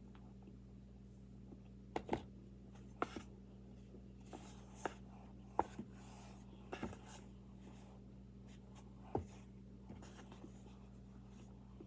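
Scattered crisp crunches and clicks from someone eating baby powder, about eight to ten in all, several coming in quick pairs, over a steady low hum.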